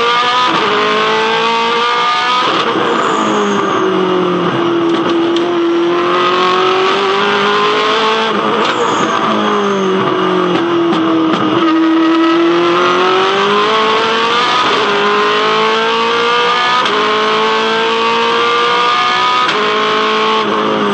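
Holden Commodore V8 Supercar's 5-litre V8 racing engine at speed, its revs climbing and falling with several abrupt gear changes, and two long stretches where the pitch sags and then climbs back.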